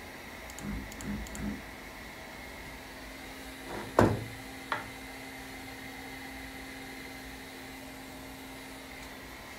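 Triquetra aluminium touch-probe block being handled on the CNC router bed: a sharp knock about four seconds in and a lighter click just after, preceded by three soft thuds. A low steady hum sets in with the knock and runs on for about five seconds, over a faint steady background hum.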